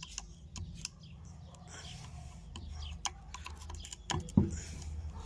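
Flat-blade screwdriver scraping and clicking against the greasy metal clutch hub of a washing machine transmission while prying at a half-moon retaining clip, with a louder knock a little after four seconds in.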